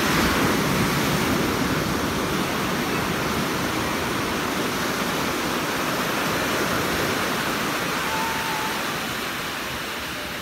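Ocean surf: a wave breaks close by right at the start, then its whitewater rushes in over the shallows as a steady roar of foam that eases off slightly toward the end.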